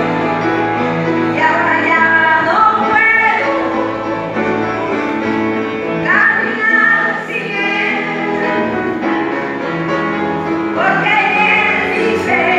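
An elderly woman singing a gospel hymn over sustained piano accompaniment.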